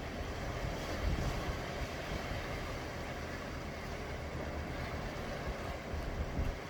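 Sea waves washing continuously, an even rushing noise under a heavy low rumble.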